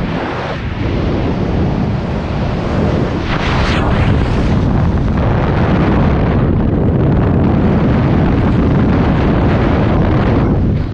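Freefall wind blasting over a helmet-mounted camera's microphone: loud, steady wind noise heaviest in the low rumble, easing briefly about half a second in.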